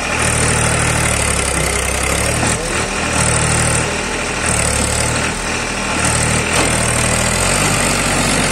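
Powertrac 439 tractor's three-cylinder diesel engine running under load, its revs surging up and down about six times in repeated bursts as it strains to pull a brick-loaded trolley out of deep mud.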